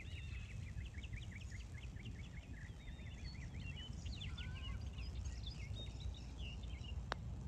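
Songbirds chirping in quick runs of short notes over a steady low outdoor rumble. A single sharp click about seven seconds in is the putter striking the golf ball.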